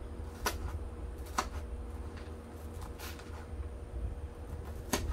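A screwdriver being worked into a styrofoam ball to widen a hole: a few short, scratchy crunches of the foam spaced out over a few seconds, with a low steady hum underneath.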